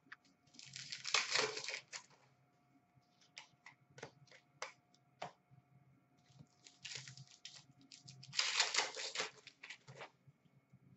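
A trading-card pack wrapper is torn open and crinkled, twice: once about a second in and again in a longer stretch near the end. Light clicks and taps of cards being handled come in between.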